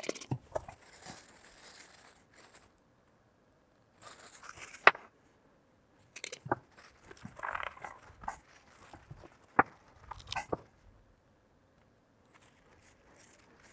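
Paper towels rustling and crumpling, with scattered small plastic and metal clicks, as grease is wiped off a small stepper motor and its gear by hand. One sharp click about five seconds in is the loudest.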